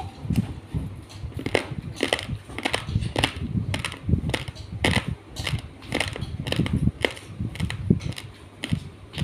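Raw rice grains crunched between the teeth, a steady run of crisp crunches about two a second.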